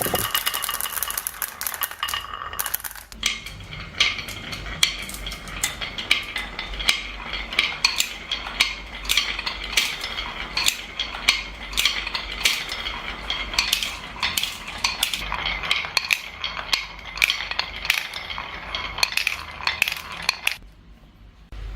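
Marbles clattering along a marble run: many sharp clicks and clacks, several a second, over a continuous rolling rattle, breaking off suddenly near the end. It opens with a couple of seconds of steady mechanical rattling.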